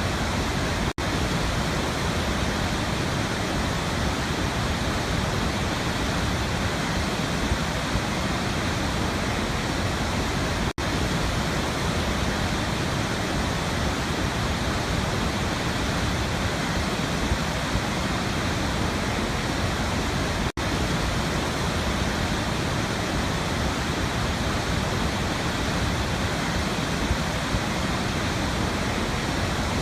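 Steady, even rush of a waterfall, cut by three very brief dropouts about ten seconds apart, the joins of a looped recording.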